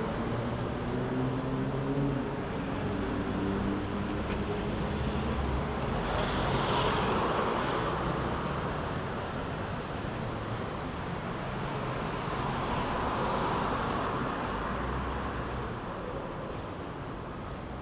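Road traffic going by: a steady rush of cars passing one after another, swelling twice, with a vehicle engine's low hum over the first few seconds.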